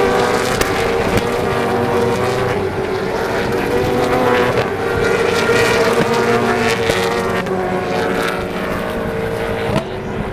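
A pack of V8 Supercars running past together, their V8 engines blending into a steady mix of several engine notes.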